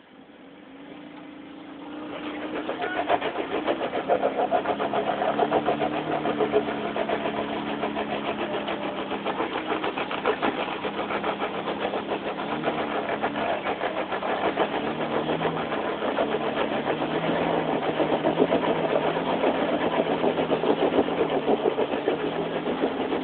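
Pickup truck engine revving hard under load as the truck climbs a rock ledge, the revs jumping up about two seconds in and rising and falling after that. The rear tire is spinning on rock and loose dirt.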